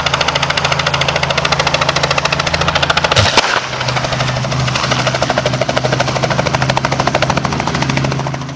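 Aircraft running close by: a fast, even chopping of its blades over a steady low engine hum, which drops out briefly a little past three seconds in.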